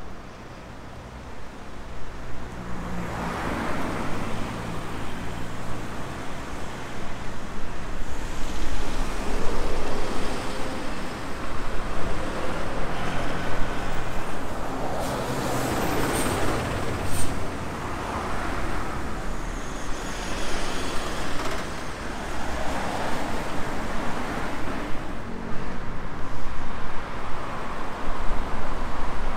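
Road traffic: cars and larger vehicles passing one after another, their engines humming low, the noise swelling and fading with each pass. A short, sharp, high-pitched sound comes about halfway through.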